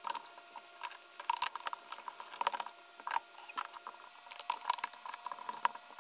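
Light, irregular clicks and taps of lightweight PVC cabinet panels being handled and slotted together, in small clusters.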